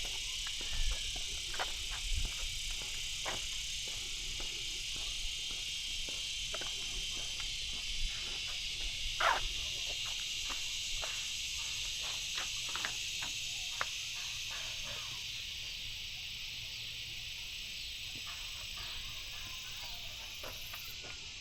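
Steady high-pitched chorus of insects, with scattered light clicks and taps.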